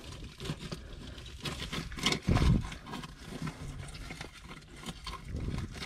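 Scraping, rustling and small clicks of a bare arm and hand working in a wet, sand-floored rock crevice while feeling for a lobster, with one louder, lower sound about two seconds in.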